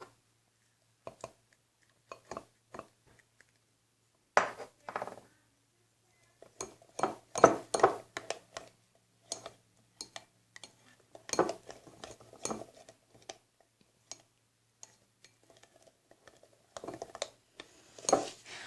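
A utensil stirring glue and shaving cream in a bowl for fluffy slime, clinking and scraping against the bowl in irregular bursts.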